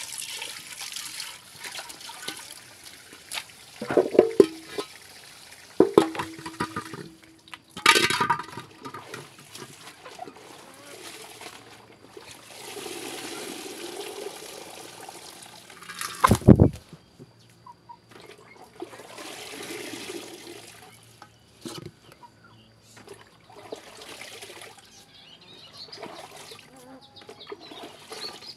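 Water poured and splashing into a large metal cooking pot, in a couple of rushing spells, with several ringing clanks of the pot being handled and a heavy thump about halfway through.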